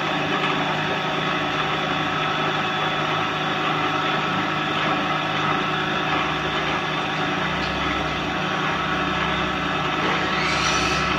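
Electric wood planing machine running steadily under load as a thin wooden strip feeds through it. A heavier low rumble sets in about two-thirds through, and a short rising whine comes near the end.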